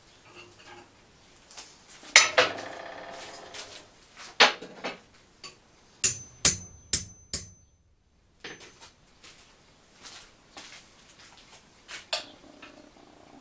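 Steel rods and parts clanking and ringing on a steel workbench, with a quick run of about four sharp hammer-like strikes on metal, each with a high ring, about halfway through. Near the end come lighter clinks of small steel pieces being handled.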